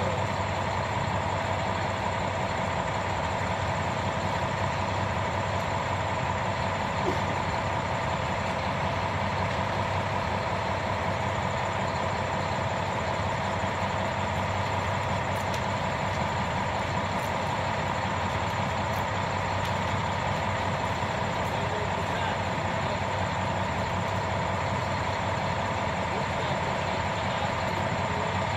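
Concrete mixer truck's diesel engine running steadily while the drum turns to discharge concrete down the chute.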